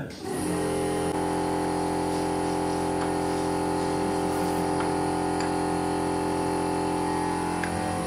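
A machine starts abruptly and runs on with a steady, even hum at a constant pitch.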